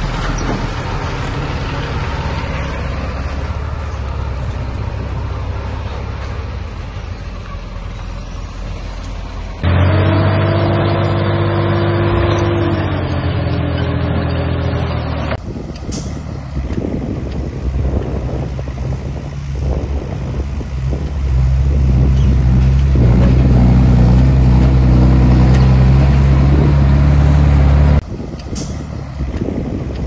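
Heavy diesel engines of earthmoving machines, a bulldozer and dump trucks, running under load. The sound changes abruptly several times between clips: the engine pitch shifts up and down about a third of the way in, and a loud steady engine drone follows in the later part.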